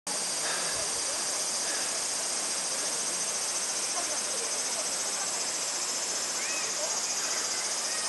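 Mountain stream running over rocks, under a steady high-pitched insect drone with a fast pulse.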